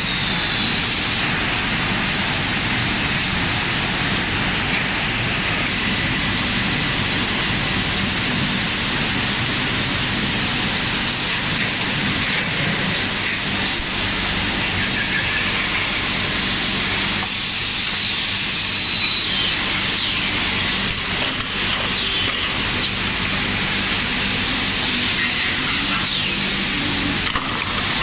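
PVC pipe extrusion line running: a steady din of factory machinery with a low hum. Twice, once at the start and again about two-thirds of the way through, a high squeal glides down in pitch.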